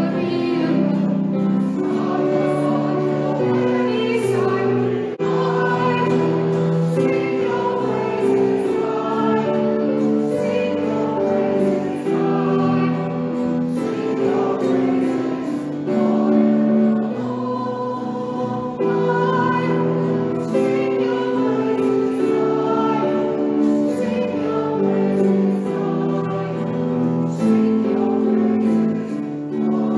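A congregation singing a worship song in unison, led by a man singing and strumming an acoustic guitar.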